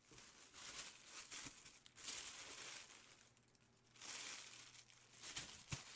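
Faint crinkling of plastic packaging being handled, in three or four short stretches.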